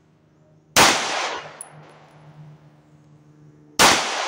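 Two shots from a Walther PPQ SC subcompact 9mm pistol, about three seconds apart, each a sharp crack followed by a ringing echo that dies away over about a second.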